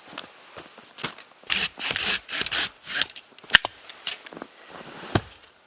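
Dry branches being worked into firewood: a run of rasping strokes, then a sharp snap about halfway and another near the end.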